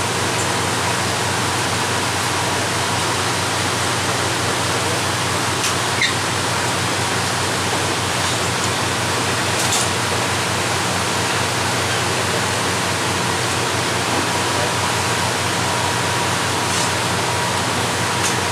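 Steady rushing noise of heavy rain and many waterfalls pouring down cliffs into the water, with a low steady hum underneath from the boat's engine.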